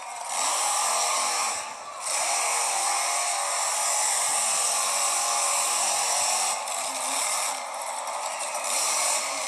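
Monster truck engine revving hard, heard as a harsh, noisy mechanical din, with the throttle lifted briefly about two seconds in and easing off again around eight seconds.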